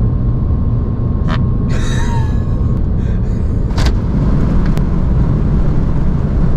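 Steady low rumble of a car's engine and tyres on the road, heard from inside the cabin while driving at speed. A few short clicks and a brief rustle come through about two seconds in.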